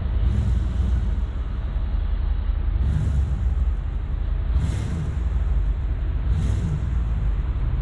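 A 2001 Dodge Ram 2500's 5.9-litre Magnum V8 running at low speed, a steady low rumble, with a few brief hisses over it.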